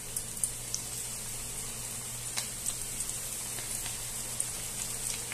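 Flour-coated chicken pieces deep-frying in hot oil in a wok: a steady sizzle with scattered crackles and pops.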